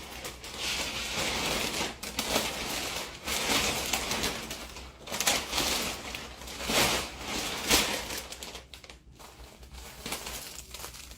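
Plastic vacuum storage bag crinkling and rustling in uneven swells, with sharper crackles, as plush toys are stuffed into it and the bag is handled.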